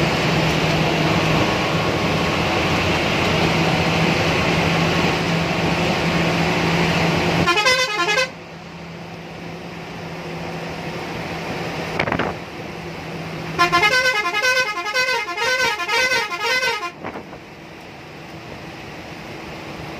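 A vehicle horn sounds over the steady engine and road noise of a moving bus: one short wavering multi-tone blast about eight seconds in, then a longer wavering blast of about three seconds in the second half. The horn blasts are the loudest sounds. The engine drone with its low steady hum is louder before the first blast and quieter after it.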